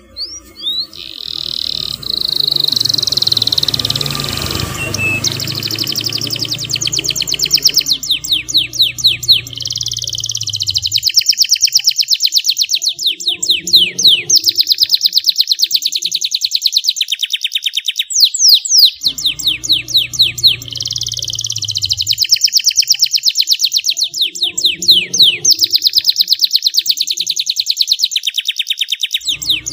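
Canary singing a long, loud song of rapid trills and quick downward-sweeping notes. A low hum runs underneath for much of it, dropping out twice.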